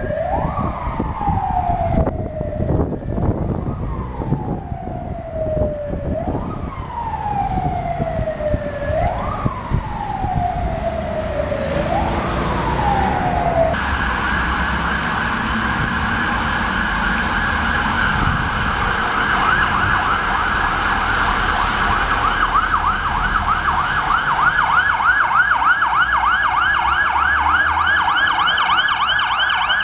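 Fire engine sirens. First a wail in slow repeating sweeps, each a quick rise and a long fall about every three seconds; after a cut, a fast warbling yelp siren that grows louder as it approaches, over the hiss of traffic on a wet road.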